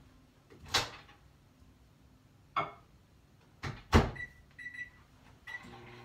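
Microwave oven being set going: a few knocks and clunks, the loudest about four seconds in, then a few short high keypad beeps, and a steady hum as the oven starts running near the end.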